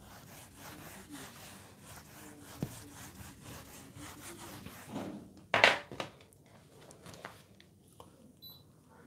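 Whiteboard being wiped clean, a faint rubbing in repeated strokes, followed by a sharp knock about five and a half seconds in and a smaller one just after.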